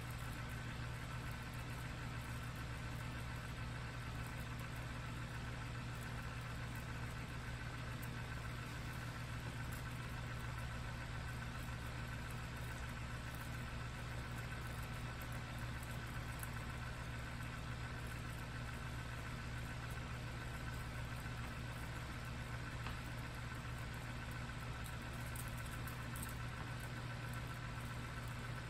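Electric desk fan running at a steady speed: an even motor hum with a low tone and a fainter higher whine over a rush of air.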